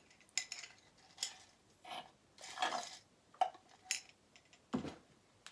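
Glass jar being handled: a string of short clinks and knocks, about seven of them, the last near the end deeper and heavier.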